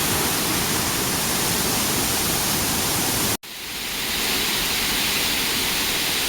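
Steady, loud rush of a waterfall. The sound cuts out for an instant about halfway through and comes back brighter, at a picture cut.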